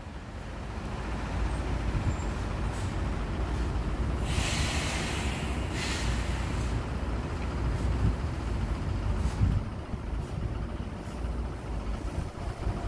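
Traffic and wind on a wet city street: a steady low rumble, with a loud hiss starting about four seconds in and lasting about two seconds.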